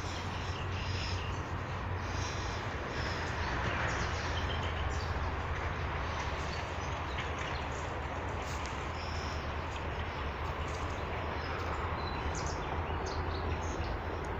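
Small birds chirping in short, high, scattered calls, over a steady low hum and constant background noise.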